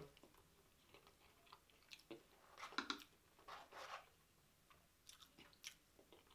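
A person chewing food close to the microphone: quiet chewing with scattered small clicks and a few louder bursts of chewing, around the middle and again a little after five seconds in.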